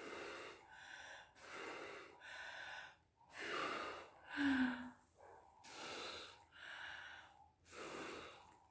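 A person breathing hard in a series of puffs, about one a second, blowing through a homemade bubble blower: a plastic bottle with a sock over its end, soaked in soapy bubble mix.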